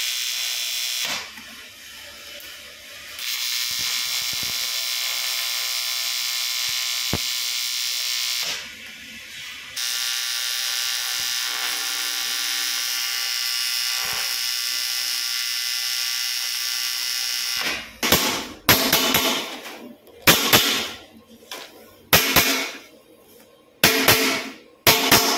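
Argon (TIG) welding arc on 3 mm aluminium sheet, buzzing steadily in three long stretches with short pauses between. From about two-thirds of the way in, a series of sharp, irregular hammer blows on the aluminium sheet.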